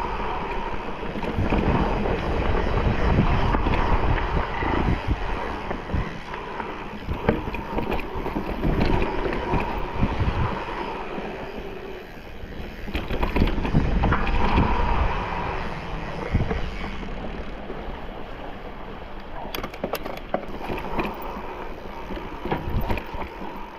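Mountain bike riding over a rough trail: tyres on dirt and stones, with uneven knocks and rattles of the bike over bumps and wind buffeting the microphone.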